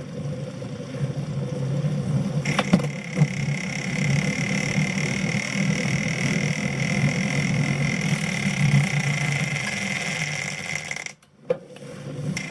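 Tacx Satori Smart magnetic-resistance bike trainer running with an abnormal noise: a steady low hum, joined about two and a half seconds in by a high whine, with a couple of clicks. The noise cuts out briefly near the end, then picks up again. It is a fault that has appeared after only about 1000 km of use.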